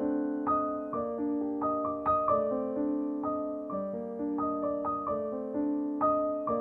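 Gentle piano background music, with a new note or chord struck about every half second.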